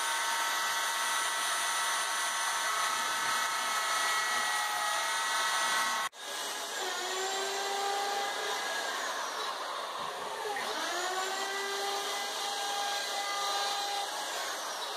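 Electric router on a router table running with a steady high motor whine, trimming plywood edges. The sound cuts off abruptly about six seconds in. A motor whine then continues, winds down sharply just after ten seconds in, and speeds back up.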